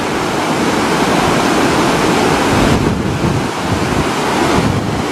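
Fast, muddy flash-flood water rushing and churning down a desert wadi: a steady, loud rush.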